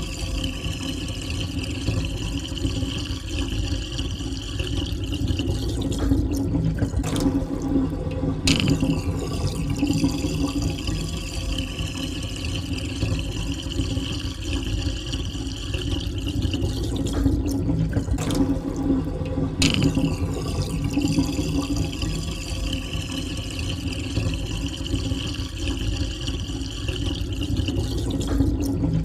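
Water draining down a sink, a steady swirling rush with a few brief breaks in the gurgle.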